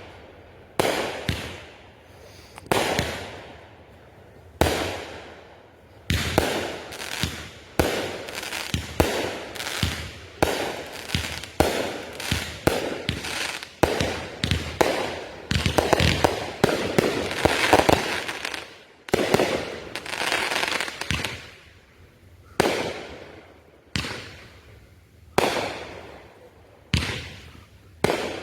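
Consumer aerial fireworks going off: a run of sharp bangs, each followed by a fading rumble, coming a second or two apart at first, then fast and overlapping with crackling through the middle, and spacing out again near the end.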